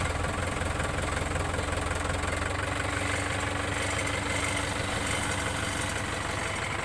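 Mahindra Yuvo 575 DI tractor's four-cylinder diesel engine idling steadily.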